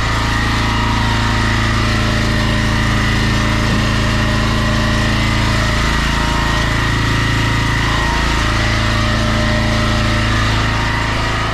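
Pressure washer engine running steadily at an even pitch, with no change in speed.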